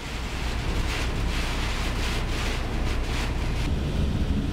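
Wind buffeting the microphone: a steady low rumble with hissing gusts that come and go for the first few seconds, then ease.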